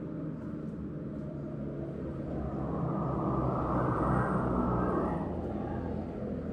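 A passing vehicle's rumble over a steady low hum, swelling to a peak about four seconds in and then fading away.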